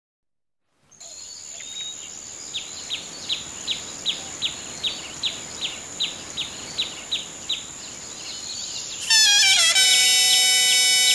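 A steady hiss with a high steady tone, over which a bird repeats a short chirp about two and a half times a second for around five seconds. Near the end a loud reedy wind instrument over a steady drone breaks in and holds long notes.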